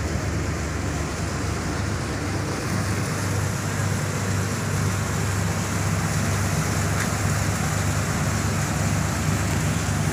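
Steady low drone with an even hiss over it: harbour background noise with an engine-like hum, and no single event standing out.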